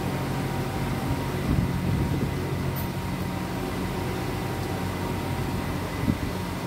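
Steady low mechanical hum made of several fixed low tones, with a few soft thumps about one and a half to two seconds in and again near the end.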